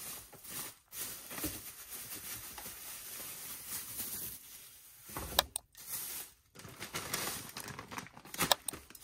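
Thin plastic grocery and produce bags crinkling and rustling as groceries are lifted out and handled, with a few brief knocks.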